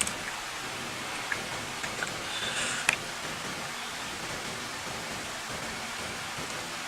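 Steady hiss of background noise, with a few faint clicks about two to three seconds in.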